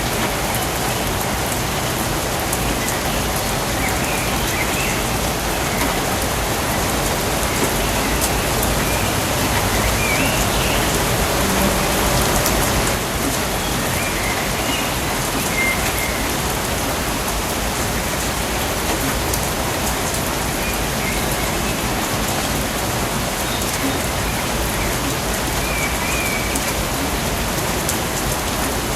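Steady rain falling in a rainforest, an even, unbroken hiss of drops on surfaces. A few short, faint bird chirps come through now and then.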